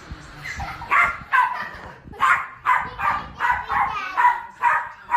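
A dog barking repeatedly, a quick series of about ten short barks starting about a second in.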